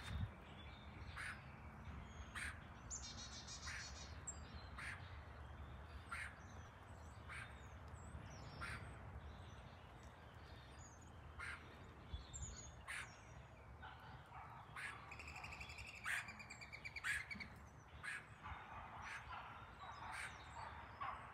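Birds calling in a yard, a short sharp call repeating about once a second, with a few brief trills of song, over a faint steady low background rumble.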